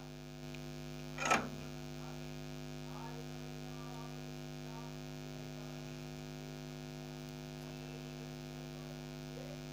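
Steady electrical mains hum with a low buzzing tone. A brief clatter comes about a second in.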